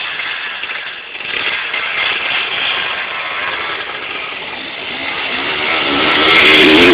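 Enduro dirt bike engine running and revving as the bike rides toward the microphone, getting louder over the last two seconds.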